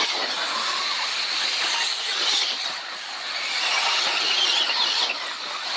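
Several radio-controlled off-road buggies racing, a steady high-pitched whine from their motors that rises and falls in pitch as they accelerate and brake.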